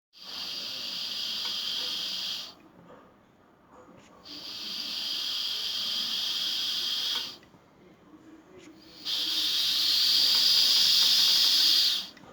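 Low-cost medical ventilator prototype pushing out air in three breath cycles: a hiss of air for two to three seconds each time, with quieter pauses between.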